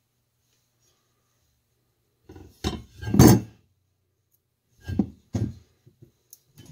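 BMX frame being handled and turned over on a wooden workbench: a loud scraping knock about two and a half seconds in, then two shorter knocks near five seconds and a few light clicks.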